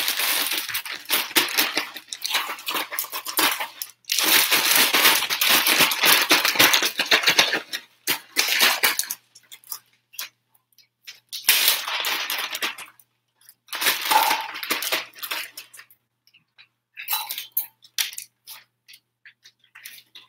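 Shrimp being shaken in a plastic zip-top bag to coat them in seasoning: bursts of crinkling plastic rustle, longest and loudest in the first eight seconds, then shorter rustles as the bag is handled.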